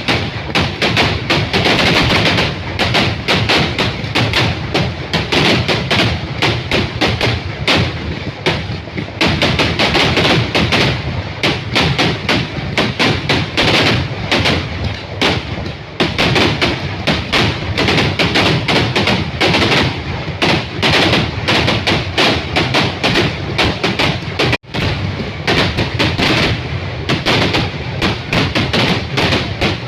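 Kerala temple fireworks (vedikettu) going off in a dense, continuous barrage of firecracker bangs, many explosions a second overlapping into a rattling roar, broken for an instant about two-thirds of the way through.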